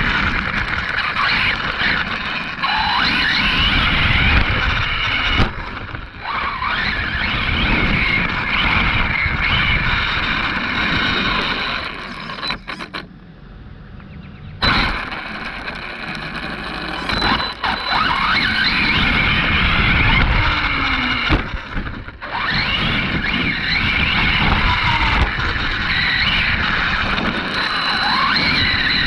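Arrma Kraton 6S RC monster truck being driven, its brushless electric motor whining up and down in pitch with the throttle over the rough noise of the running truck. It goes quiet for about a second and a half near the middle.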